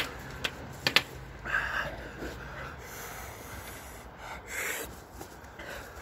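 Men breathing hard, blowing air out through pursed lips against the burn of a Carolina Reaper pepper, with two strong breaths out at about a second and a half and four and a half seconds in. A few sharp taps come in the first second.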